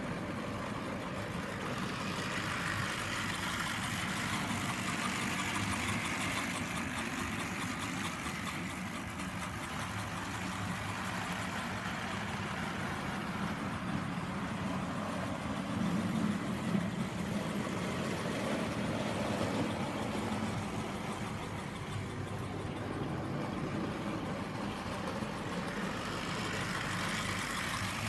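Model trains running on a layout: a steady hum of electric motors and wheels on the track, swelling briefly about two-thirds of the way through as a train passes close.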